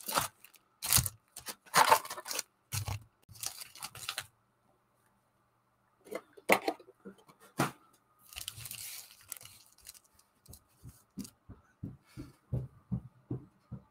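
Foil card packs crinkling and clicking against one another and tapping down on a padded mat as they are pulled from a Panini Prizm baseball box and stacked. A couple of sharp knocks and a brief rustle follow as the cardboard box is handled, then faint soft thumps about twice a second near the end.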